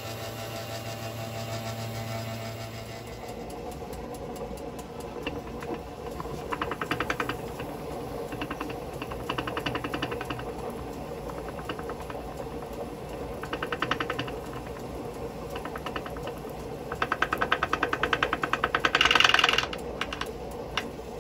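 Heavy stitching machine's motor humming steadily, with several bursts of fast, even rattling as the machine runs to wind thread onto a bobbin on its bobbin winder. The loudest burst comes near the end.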